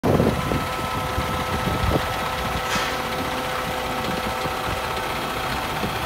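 Diesel engine of a cement mixer truck idling steadily, a low rumble with a faint steady whine over it.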